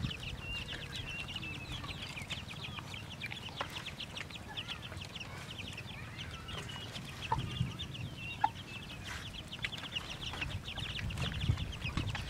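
Chickens clucking, with a dense, rapid high chirping throughout, over dogs eating from bowls; a few small knocks from the bowls about seven and eight and a half seconds in.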